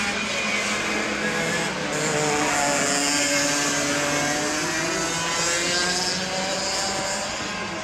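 A pack of racing karts' two-stroke engines running at high revs, several overlapping engine notes slowly rising and falling in pitch.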